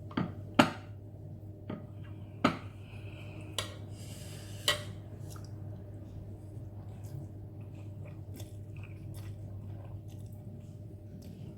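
A person eating spicy Korean instant noodles: chewing, with several sharp clinks of a utensil against the bowl in the first five seconds, then quieter eating over a steady low hum.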